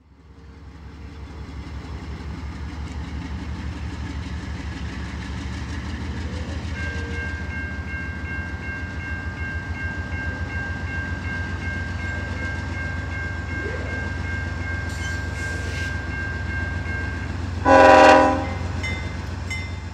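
Norfolk Southern freight train's diesel locomotives rumbling with a steady low throb, with a steady high whine for about ten seconds in the middle. Near the end the locomotive horn sounds one short, loud blast.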